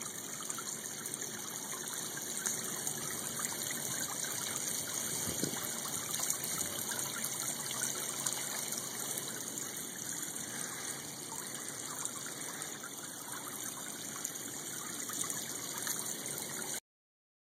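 Steady trickling and gushing of running water in a koi pond. It cuts out suddenly about a second before the end.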